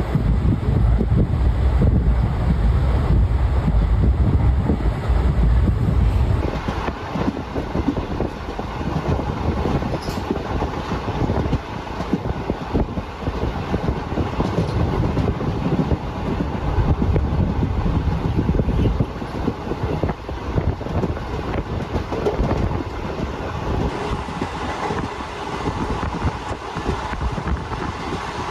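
Express passenger train running along the line, heard from aboard: a continuous rumble and rattle of the coach and its wheels on the rails. The deep low rumble eases about six seconds in.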